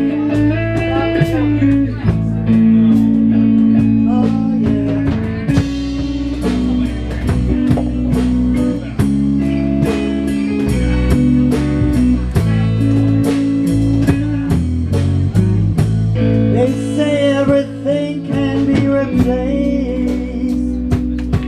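Live band playing electric guitars and a drum kit, with a steady beat of drum hits.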